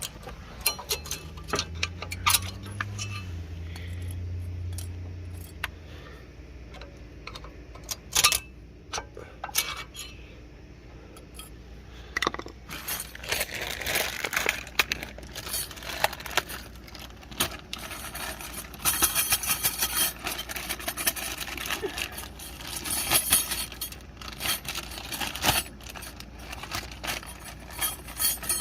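Irregular light metallic clinks and clicks of brake-pad clips and hand tools being handled, as the old pad clips are worked off the brake caliper bracket. A low hum sounds for the first few seconds.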